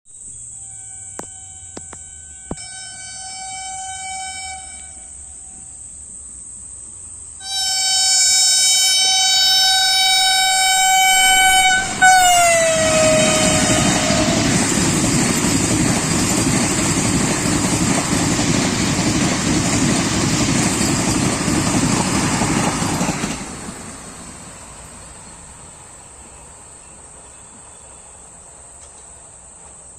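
Vande Bharat Express train horn sounding briefly, then again loudly for several seconds, its pitch dropping as the train passes at speed. The loud rushing noise of the passing train follows for about ten seconds, then falls away. Crickets chirp steadily throughout.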